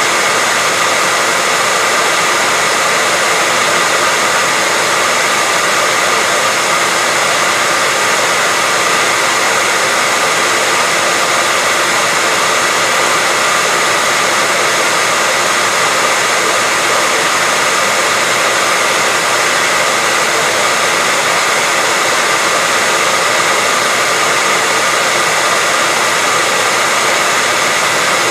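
Hair dryer running steadily: an even, unchanging hiss of rushing air, with a faint steady whine from the motor and fan.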